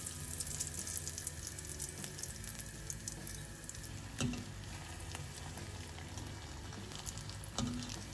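A breadcrumb-coated potato ball deep-frying in hot oil in a steel pan, sizzling and crackling steadily. Two brief metallic knocks, about four seconds in and near the end, as a fork turns the ball against the pan.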